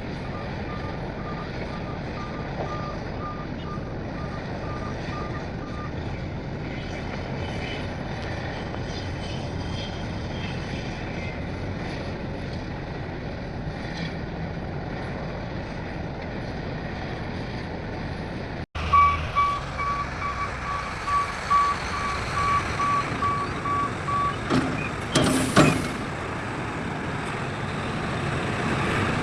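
Dump truck reversing alarm beeping in even pulses over steady diesel engine noise, stopping about six seconds in. After a cut, a reversing alarm beeps again for about five seconds, followed by a short loud hiss.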